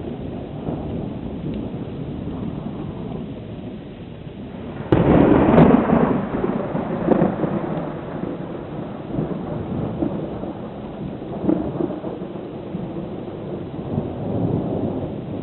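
Thunder: a sudden loud crack about five seconds in, followed by a rolling rumble that swells again several times. Steady rain hisses underneath.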